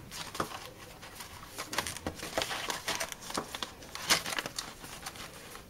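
Paper seed packets being flipped through and rustled in a plastic tub: an irregular run of light papery clicks and rustles, a little stronger about two and four seconds in.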